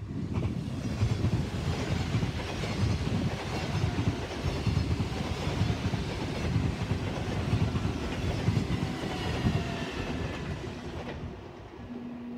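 NS VIRM double-deck electric multiple unit passing close at speed: a loud rush with a rhythmic clatter of wheels over the rails, fading away about eleven seconds in as the train recedes.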